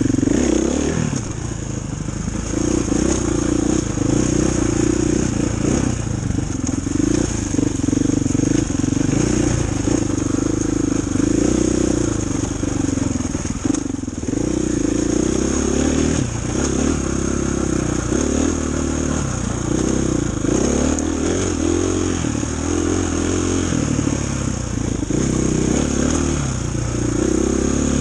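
Dirt bike engine running on a rocky trail, its note rising and falling again and again as the throttle is worked on and off.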